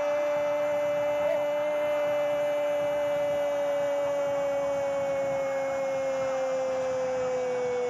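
A Brazilian football commentator's long, drawn-out goal cry: one held 'Goooool' on a single note that sinks slowly in pitch.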